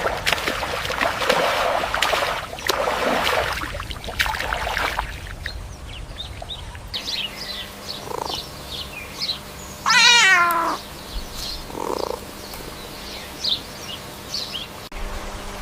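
A puppy whining: one loud cry falling in pitch about ten seconds in, with short high squeaks around it and scuffling, breathy noises in the first few seconds.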